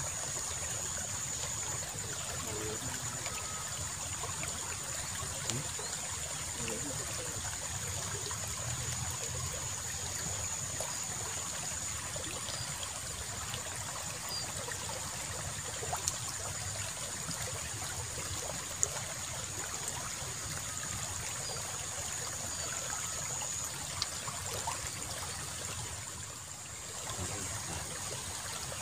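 Water flowing and trickling steadily along a small irrigation ditch, with a thin steady high-pitched tone over it and a few faint small clicks.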